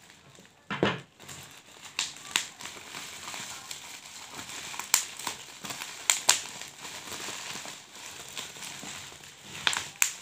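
Bubble wrap and plastic packing crinkling as hands pull it open around clay pots, with several sharp crackles among the rustling.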